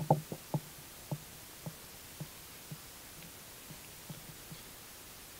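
Football trading cards being flipped through by hand, each card giving a short tap as it is slid off the stack. A quick cluster of taps comes first, then about two taps a second that grow fainter, with a few very faint ones near the end.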